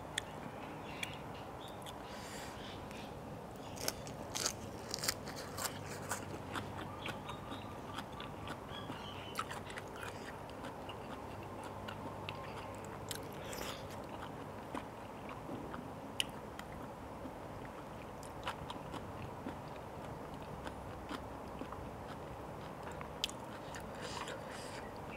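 Close-miked eating of spicy papaya salad with blood cockles: biting and chewing, with scattered sharp clicks that come thickest about four to six seconds in.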